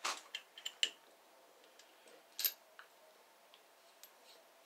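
Small metal clicks and taps of a hydraulic hose fitting being handled and fitted to a homemade adapter on a brake cylinder. There are a few quick clicks at the start and one sharper click about two and a half seconds in.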